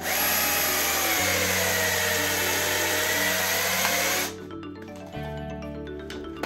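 Cordless drill spinning a 12 mm hollow punch bit through a felt wading-boot sole. Its motor whine sags in pitch as the punch bites, picks back up, and stops about four seconds in.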